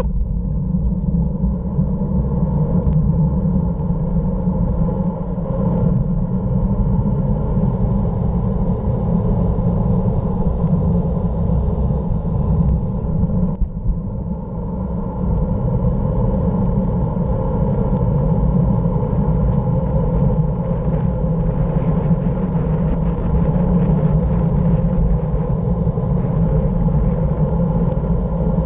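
Steady wind rush over the microphone with tyre noise on asphalt during a fast downhill ride, easing briefly about halfway through.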